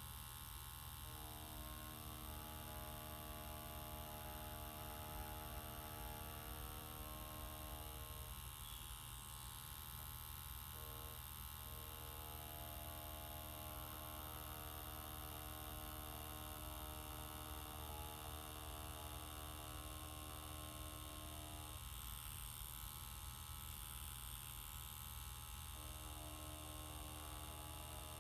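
Tattoo machine buzzing steadily while lining with the needle on skin. Its hum thins out twice for a few seconds, about a third of the way in and again near the end.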